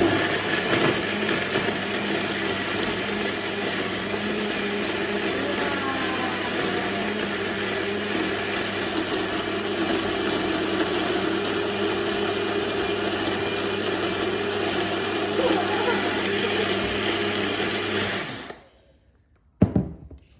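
Personal bullet-style blender running steadily, blending frozen banana, dates and coconut milk into a smoothie. About two seconds before the end, the motor switches off and winds down, followed by a sharp click.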